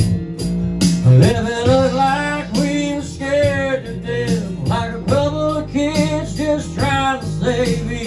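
Live band playing a country song: acoustic guitar strumming over electric bass and a steady drum beat, with male voices singing from about a second in.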